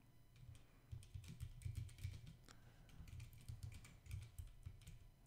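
Typing on a computer keyboard: faint, irregular keystrokes.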